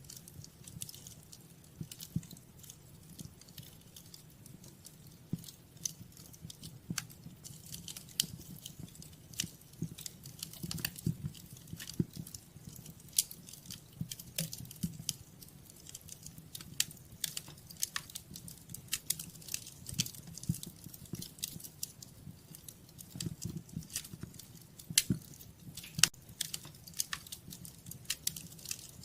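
Fire crackling in a fireplace: irregular sharp snaps and pops, some louder than others, over a low steady rumble of the flames.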